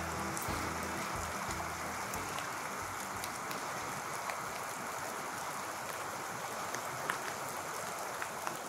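Steady rush of flowing river water, with a few faint ticks near the end. Background music fades out in the first couple of seconds.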